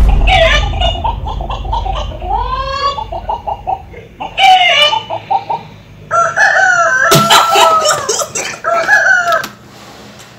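A man imitating a chicken: a run of clucks and crowing calls that rise and fall, in several bursts with short gaps, the longest about two-thirds of the way through.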